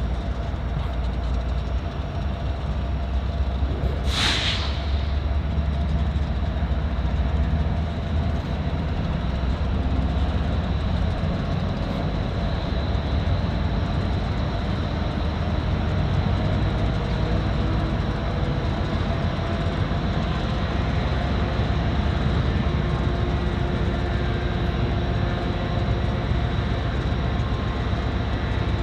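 Freight train running on the rails, a steady heavy rumble of locomotive and rolling cars, with a faint high steady tone over it. A brief sharp hiss comes about four seconds in.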